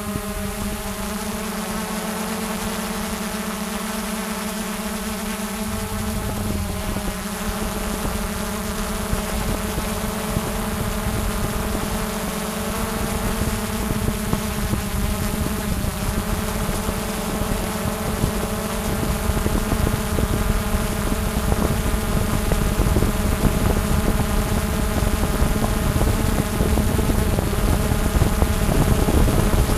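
Quadcopter drone's propellers and motors buzzing steadily in flight, a hum that holds one pitch and grows louder, with a low rumble building underneath in the second half.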